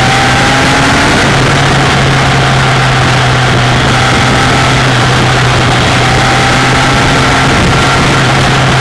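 Kawasaki ZX-10R inline-four engine running at steady road speed, its note stepping up slightly about a second in, under a heavy rush of wind and rain spray.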